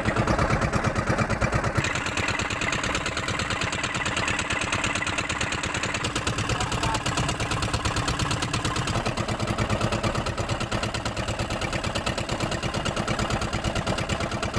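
Engine of a small outrigger fishing boat running steadily, with a fast, even beat of firing strokes.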